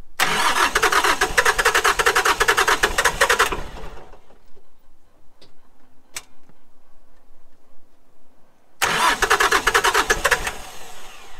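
Three-cylinder diesel tractor engine cranked on the starter twice, a long crank of about three and a half seconds, then a second shorter one of about two seconds near the end, with a few faint clicks in the pause between. It is a hard cold start: the engine's glow plugs have failed.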